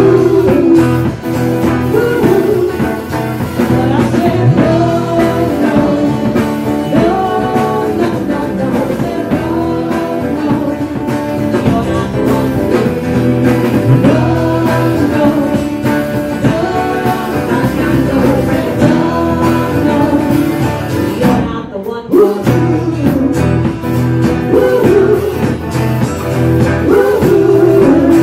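A live band playing: a woman sings into a microphone over electric guitars, an acoustic guitar and a drum kit, with a short break in the music about three-quarters of the way through.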